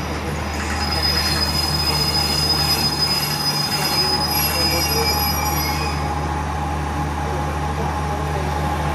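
Passenger train coaches rolling slowly past, their steel wheels squealing in high thin tones from about half a second in until about six seconds in, over a steady low engine hum.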